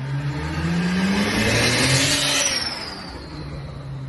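A car engine revving up, its pitch rising for about two and a half seconds, then easing off and fading.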